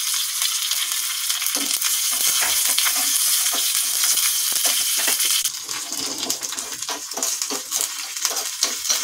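Mustard seeds and chopped curry leaves sizzling and crackling in hot oil in a small tempering pan, with a spoon stirring against the pan. The sizzle gets quieter about five and a half seconds in.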